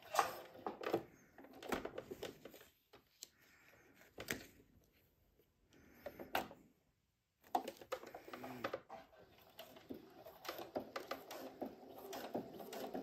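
Brother Innovis F420 computerized sewing machine stitching slowly, stopping and starting, with a fast light ticking of the needle that gets denser in the second half. It is mixed with handling clicks as the PVC and faux leather are guided under the presser foot.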